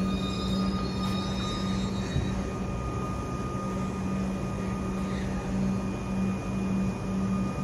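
Comeng electric train standing at the platform, giving a steady low hum that pulses slightly, with a thin steady high whine. A faint high squeal fades out over the first couple of seconds.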